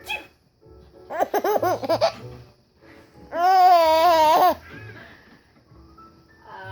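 A baby laughing in a run of quick bursts, followed about two seconds later by a loud, held, wavering voice lasting just over a second.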